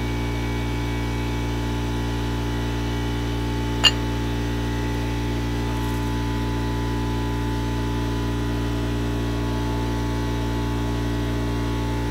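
Air compressor running steadily: an even mechanical hum. A single sharp click comes about four seconds in.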